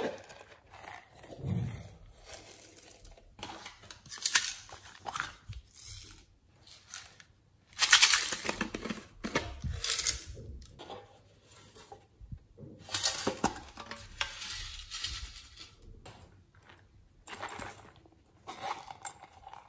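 Glitter and sequins shaken from a plastic bottle onto slime in a glass dish, and squishy foam toys being handled, in irregular bursts of scratchy, clicking noise. The loudest bursts come about a third of the way in and again a little past halfway.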